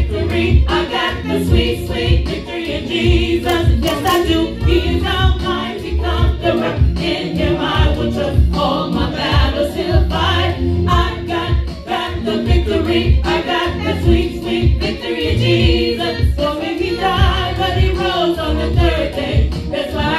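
Gospel praise-and-worship song: a small group of singers, mostly women, singing together over music with a heavy, repeating bass beat.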